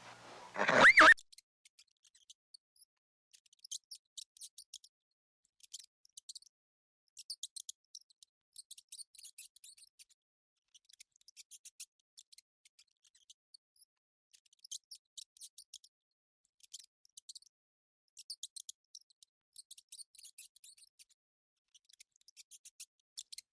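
An animal call ending about a second in, then faint rapid high-pitched clicking in short irregular clusters.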